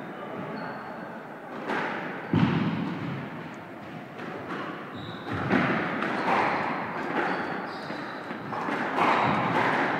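Squash rally: the ball is struck by rackets and hits the walls, sharp knocks a few seconds apart, the loudest a deep thump about two seconds in.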